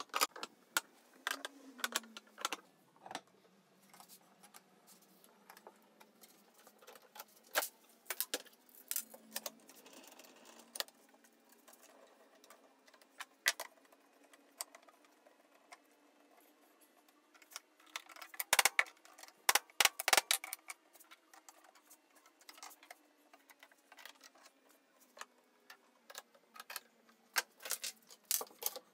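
Sharp clicks and knocks of metal bar clamps and wooden pieces being handled and set during the glue-up of an end-grain walnut cutting board, scattered irregularly, with a dense run of clicks about two-thirds of the way through.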